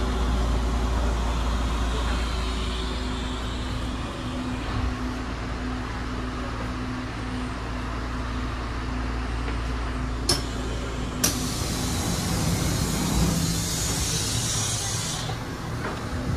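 Passenger train running, heard from inside a carriage: a steady low rumble, with two sharp clicks about ten and eleven seconds in and a hiss that runs for about four seconds after the second click.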